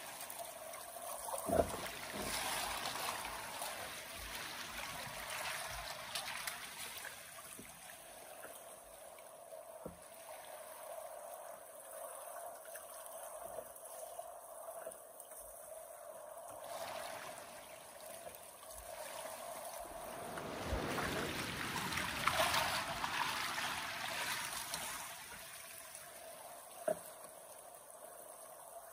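River water flowing steadily, swelling louder twice, with a few short knocks.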